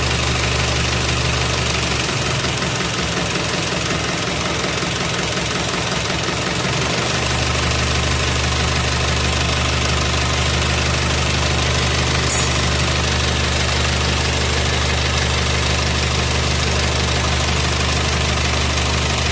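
Isuzu 4HF1 four-cylinder diesel engine idling steadily with a knocking diesel clatter, running after a new fuel pump was fitted to cure hard starting. About two seconds in, the low hum changes for a few seconds, then settles back to its steady note.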